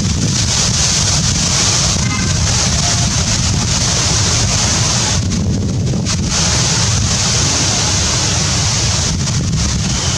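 Steady low rumbling noise with a high hiss, like wind buffeting the microphone; the hiss dips briefly about five seconds in.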